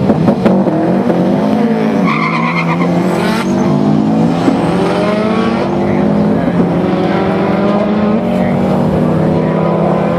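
Subaru Impreza WRX STi and a rival drag car launching off the line and accelerating hard down the strip, their engine notes climbing and dropping back at each gear change. Wind buffets the microphone.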